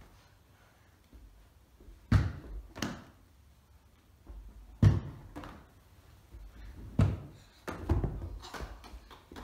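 A football thudding during an indoor goalkeeping test: about six sharp, dull thumps at uneven intervals of roughly a second, starting about two seconds in.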